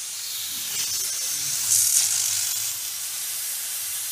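Pressure cooker on a gas burner hissing steadily as steam escapes under pressure; the hiss swells briefly about two seconds in.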